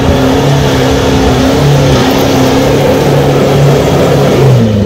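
A four-wheel-drive's engine working hard as it climbs a dirt track, the revs rising and falling, then dropping away near the end.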